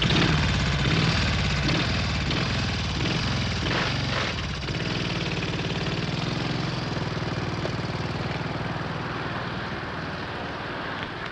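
An engine running steadily with a fast, even pulsing. It cuts in suddenly and slowly grows fainter.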